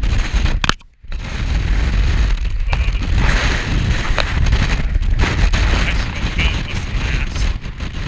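Strong wind buffeting the camera's microphone: a loud, heavy low rumble with rushing noise above it, broken by a brief drop-out about a second in.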